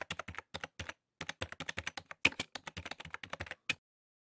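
Computer keyboard typing sound effect: a rapid, uneven run of key clicks with short pauses, stopping shortly before the end.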